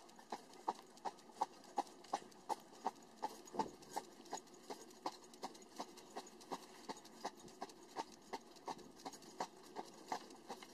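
Horse's hooves clip-clopping on a tarmac lane in an even beat, about three knocks a second, from a horse drawing a carriage.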